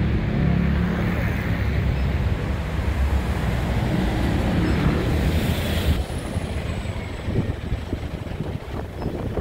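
Red double-decker London bus passing close by with a low engine rumble, which drops away about six seconds in as it pulls off; a short hiss comes just before the drop, and wind buffets the microphone.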